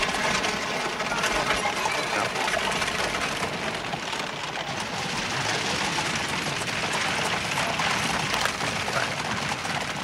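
Busy street crowd noise: a steady jumble of distant voices with a constant clatter of small knocks and rattles.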